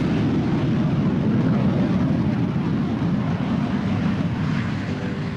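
Airplane passing overhead: a steady engine rumble that swells in and then fades near the end.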